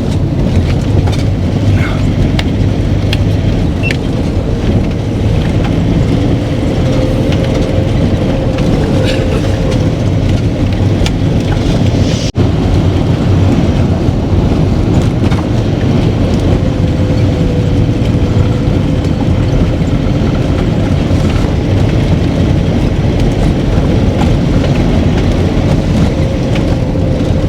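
A vehicle driving on a rough mountain road: steady engine and road noise with a faint steady whine and occasional light knocks and rattles. It breaks off for an instant about twelve seconds in.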